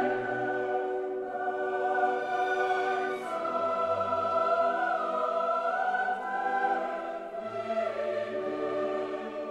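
Classical choral music: voices hold long notes in slowly changing chords over a low bass line.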